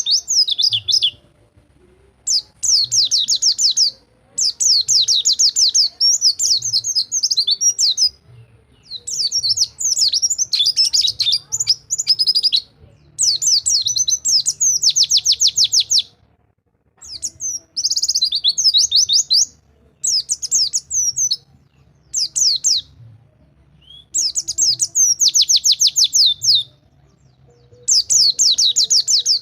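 White-eye (pleci) singing a rapid rolling 'rol tembak' song. Fast trills of high notes come in phrases of one to three seconds, separated by short pauses.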